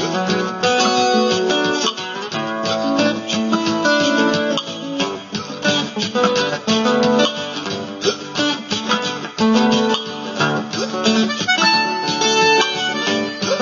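Looped, multi-layered guitar music from a loop pedal: many overlapping plucked and strummed parts repeating densely, recorded on a phone.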